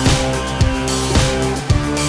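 Background music with a steady drum beat, about two beats a second, over held instrumental notes.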